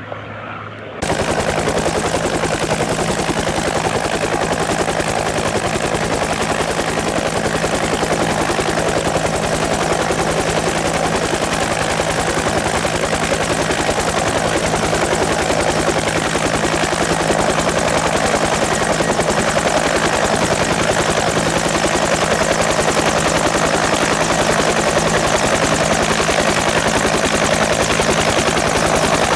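Hawker Sea Hurricane's Rolls-Royce Merlin V12 engine running loud and steady, its exhaust a rapid, even popping. The sound cuts in abruptly about a second in.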